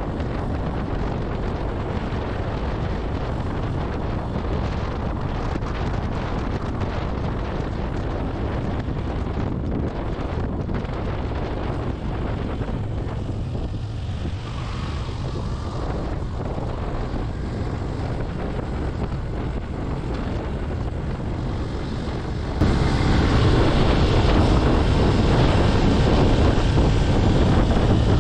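Wind rushing over the microphone of a riding motorcycle, a steady noisy roar; it turns suddenly louder about 23 seconds in.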